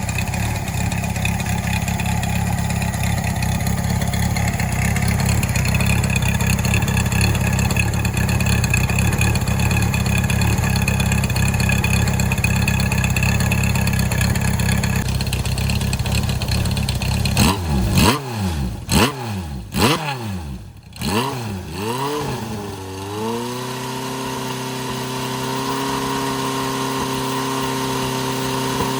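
Honda CB750 Four's air-cooled inline-four running through a Yoshimura Straight Cyclone short exhaust with a silencer baffle fitted. It idles steadily at first, then is blipped several times with the pitch rising and falling quickly. After that it settles into a steady even note.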